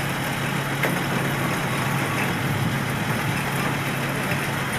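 Heavy truck diesel engine running steadily with a low, even drone.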